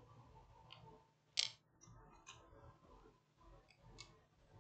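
Near silence broken by a few faint clicks and taps from small phone parts and tools being handled, the sharpest about a second and a half in.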